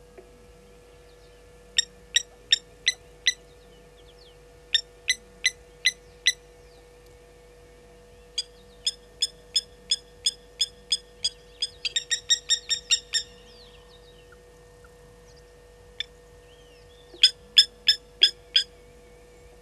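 Blacksmith lapwings giving sharp, metallic 'tink' alarm calls in runs of about five notes, roughly three a second. In the middle they come faster and overlap, as if more than one bird is calling. The birds are alarmed by a slender mongoose.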